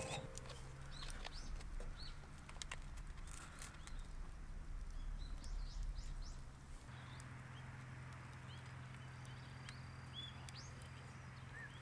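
Faint bird chirps, short and scattered, over a low outdoor background, with a few small clicks in the first half.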